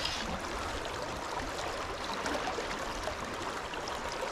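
Steady rush of flowing river current.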